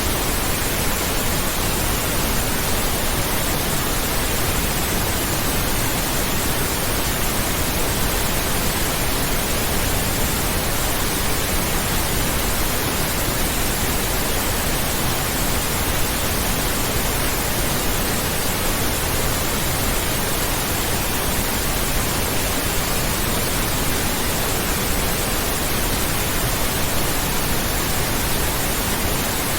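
Steady pink noise: an even, unbroken hiss that does not change.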